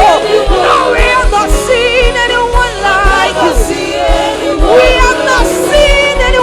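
Gospel worship music: voices singing with wavering, ornamented lines over a band with a steady low beat.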